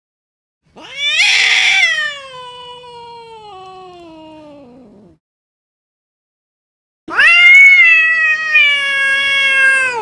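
Domestic cat giving two long, drawn-out angry meows. The first is loud at its start, then slides down in pitch and fades over about four seconds; the second starts about seven seconds in, loud and held at a steady pitch for about three seconds.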